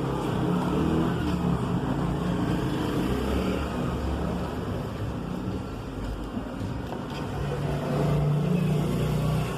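A motor running with a low, steady rumble that grows louder about eight seconds in.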